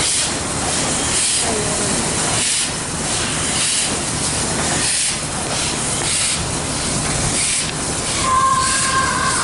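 Victorian Railways R class steam locomotive R761 moving slowly with steam venting at its cylinders, giving a regular hissing chuff a little more than once a second. Near the end a brief steady high two-note tone sounds.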